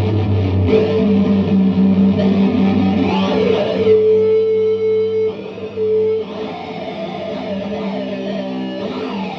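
Electric guitar played through an EarthQuaker Devices Data Corrupter, a monophonic harmonizing PLL fuzz pedal, giving synth-like fuzz tones. Notes are held with stacked pitches, with a rising sweep about a third of the way in and a falling glide near the end.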